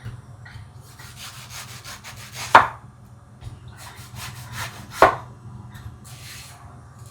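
Knife cutting food on a wooden cutting board: runs of quick scraping strokes, with two sharp knocks of the blade on the board about two and a half seconds apart.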